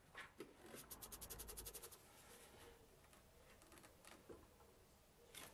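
A worm-drive hose clip being fitted to a rubber intake hose: a quick, even run of light metal clicks, about ten a second, lasting about a second, with a few single clicks and faint handling noise around it.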